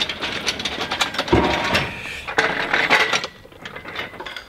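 Metal clanking, clicking and rattling as an engine hung from an engine crane is worked into place. There is a heavier thump about a second and a half in, and it goes quieter near the end.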